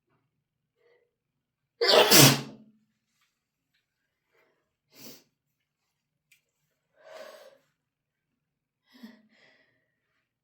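A person sneezes once, loud and explosive, about two seconds in. The sneeze is brought on by a feather dusted with chhinkni, a herbal sneezing powder, tickling the nose. Several much quieter breaths follow.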